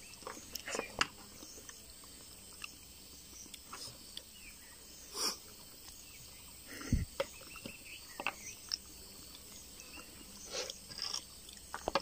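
People eating ripe jackfruit bulbs by hand: scattered wet mouth sounds, chewing and lip smacks, with a short low falling sound about seven seconds in.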